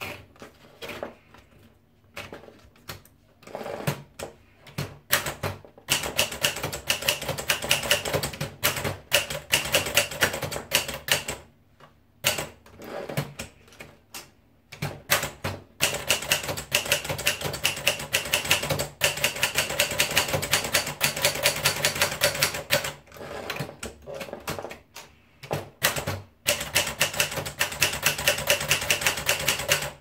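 Vendex 250 manual portable typewriter being typed on: quick runs of sharp clacks from the typebars striking the paper, a few seconds at a time, three times. Between the runs, scattered slower clicks from the paper and carriage being worked.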